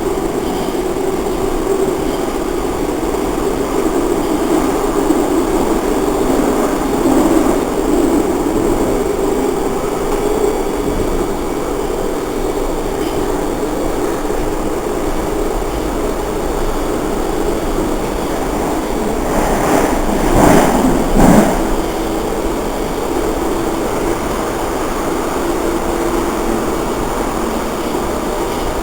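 Interior of a Baltimore Metro Budd subway car running between stations: a steady rumble of wheels on rail and running gear. About twenty seconds in it grows louder for a couple of seconds, with two sharp knocks.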